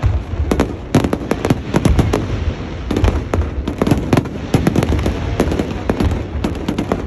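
Fireworks going off in quick succession: many sharp bangs and crackling pops, several a second, over a continuous low rumble of the shell bursts.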